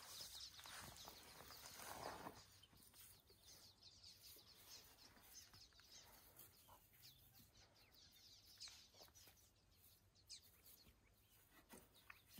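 Near silence: faint outdoor background with a few brief, distant bird calls.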